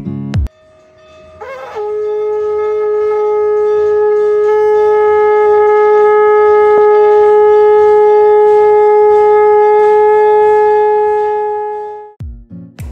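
Conch shell (shankha) blown in one long, steady note of about ten seconds. It starts with a short upward slide about a second and a half in and dies away near the end. A brief snatch of music cuts off just before it.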